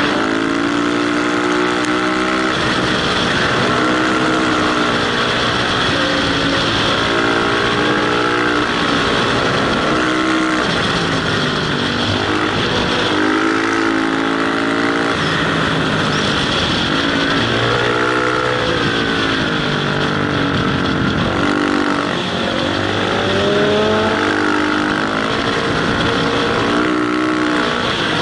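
Motorcycle engine running hard on the move, its revs climbing and dropping again and again through throttle and gear changes, under a steady rush of wind noise.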